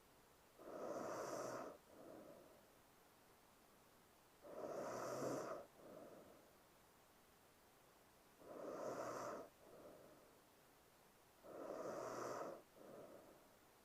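A woman snoring in her sleep. There are four regular snores about every three and a half to four seconds, each a rasping breath of about a second followed by a shorter, softer breath.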